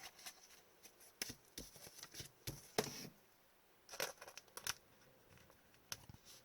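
Trading cards and plastic card holders being handled at close range: scattered light clicks, taps and short sliding rustles, the clearest a slide about three seconds in and a small cluster about a second later.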